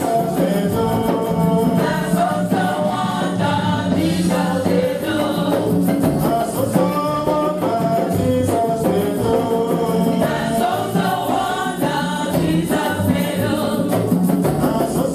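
Group singing of gospel music with instruments and a steady beat, a choir-like sound.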